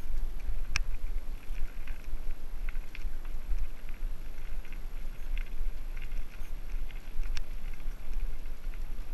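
Mountain bike riding down a rough trail: the frame and parts rattle and tyres crunch over stones, with two sharp clicks near 1 s and 7 s, under a steady low rumble of wind buffeting the microphone.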